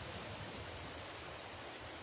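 Steady outdoor background hiss with a low rumble underneath, no distinct events.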